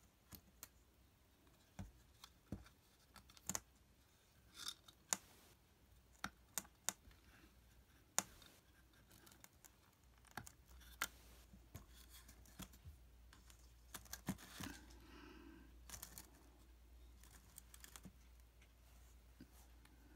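Hard plastic 3D-printed model being handled on a tabletop: irregular sharp clicks, taps and light knocks as it is gripped, turned over and set down, with a short scraping rustle a little past the middle.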